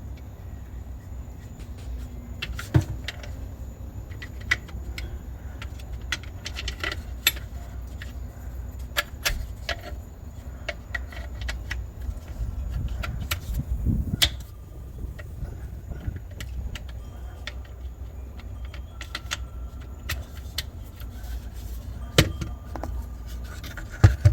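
Scattered clicks, clinks and knocks of a faucet-nut installation tool and its adapters being handled and fitted under a sink, over a low steady rumble.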